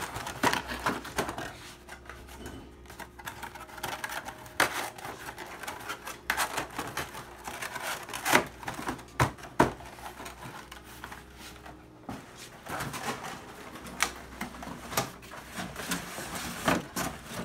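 Corrugated cardboard display panels being handled and fitted together: irregular scraping and rubbing with sharp knocks as divider panels are slid into the slots of a tray and a tray is set onto the stack.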